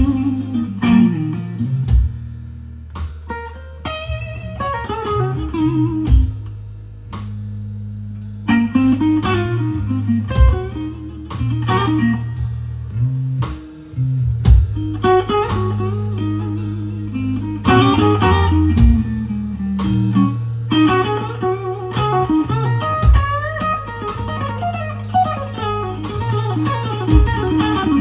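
Slow blues played on electric guitar, bass and drums: a lead guitar solo line with bent notes over held bass notes and a steady drum beat.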